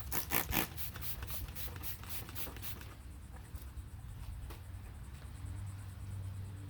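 A trigger spray bottle of alcohol-and-water prep mix squirted rapidly about a dozen times onto a shop towel, then softer rubbing of the towel wiping down the painted hood.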